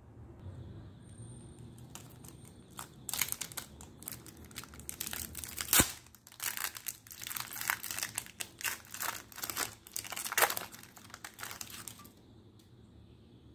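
Foil wrapper of a Pokémon Trading Card Game booster pack crinkling as it is torn open and pulled apart by hand, with one sharp snap of the tear near the middle. The crinkling goes on for several seconds and then stops.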